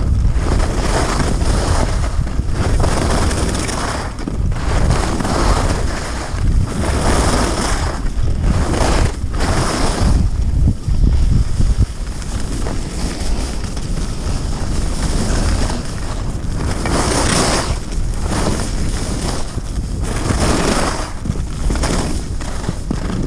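Wind rushing over a GoPro's microphone on a downhill ski run, with the skis scraping over packed snow; the hiss swells and fades in surges every second or two as the skier turns.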